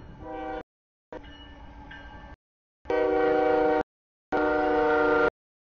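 Freight locomotive's air horn sounding a chord in a series of blasts about a second long for a grade crossing, as the train approaches. The blasts grow louder, and the two near the end are the loudest.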